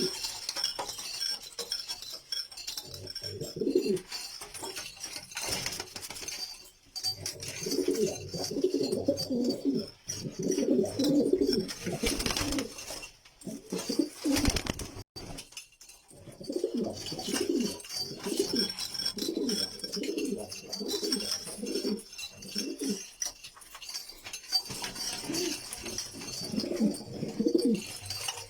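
Domestic kash pigeons cooing in repeated bouts of low, pulsing coos, with a thin high sound behind and a couple of brief noisy rushes about halfway through.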